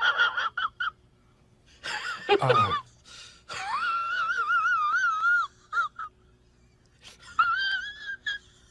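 A person's high-pitched, wordless vocal sounds: several short calls, a quick falling glide about two seconds in, and one long call with a wavering pitch in the middle, then more short calls near the end.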